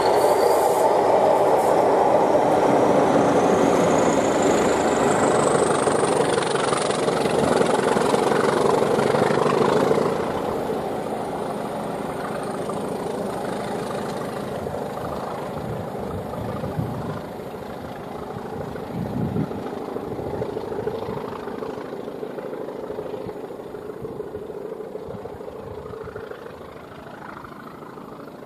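Diesel-locomotive-hauled passenger train passing at speed. The engine and rail noise is loud for about ten seconds, then drops and fades as the train pulls away. A high whine climbs in pitch over the first several seconds.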